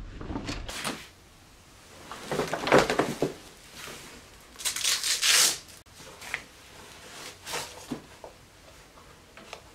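Rustling and handling noises from unpacking a suitcase, with clothes and bags shifted about: two louder rustling spells in the first half, then scattered light knocks and rustles.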